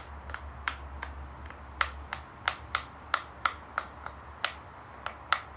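Silicone push-pop fidget toy having its bubbles pressed one after another, each giving a sharp pop, about three pops a second, some fifteen in all.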